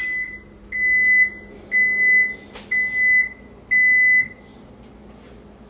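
Electronic beeper sounding four evenly spaced high-pitched beeps, about one a second and each about half a second long, with a sharp click between the second and third beeps; after the last beep only a faint steady hum remains.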